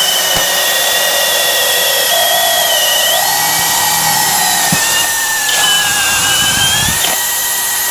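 Cordless hammer drill boring a 1-inch self-feed spider bit into a wooden beam, a steady high motor whine over the rasp of the cutting. The whine sags in pitch a couple of times as the bit loads up, then recovers about seven seconds in.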